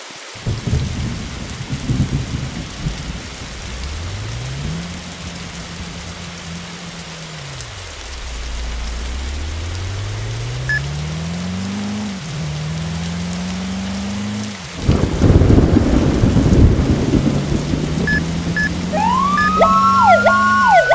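A fire engine's diesel engine pulls away, its pitch climbing and then dropping in steps as it accelerates through the gears. About three-quarters of the way in there is a burst of loud noise. Near the end a siren begins to wind up.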